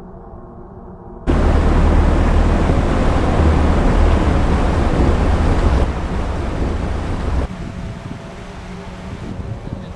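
Soft music cuts off about a second in to a loud rush of water and wind noise with a heavy low rumble as an SUV drives through a shallow river. It eases twice and drops to a quieter wind rush after about seven seconds.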